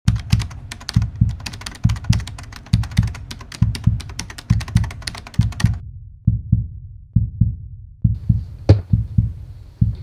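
Intro sound design: deep double thumps like a heartbeat, about once a second, with dense crackling over them for the first half. After that the thumps carry on alone, with one sharp hit near the end.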